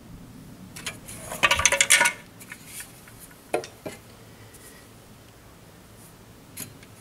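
Tools and wooden formwork boards being handled: a short burst of rattling clinks about a second and a half in, then a few single knocks.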